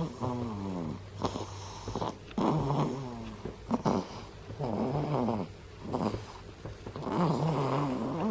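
Nursing baby snoring while asleep at the breast: a run of about six short snores, each with a wavering pitch, one every second or so.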